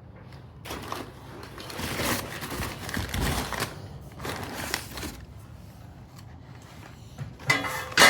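Metal exhaust pipe sections being handled and moved about: scraping and rustling in the first few seconds, then a sharp loud knock near the end.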